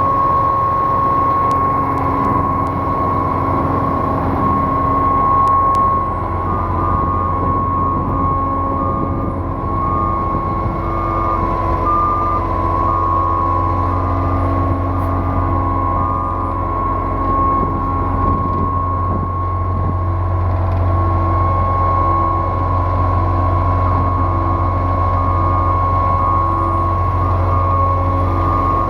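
2006 Putzmeister 32Z truck-mounted concrete pump running steadily, with a low engine hum under a constant high-pitched whine. From about seven seconds in, a short higher tone repeats at an even pace.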